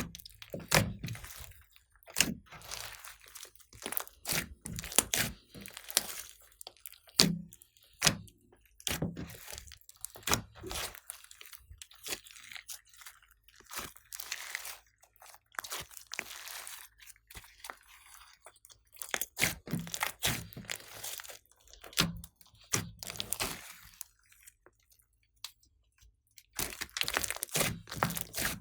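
Slime being squeezed, folded and stretched by hand, giving off irregular crackling pops and clicks, with a short pause near the end.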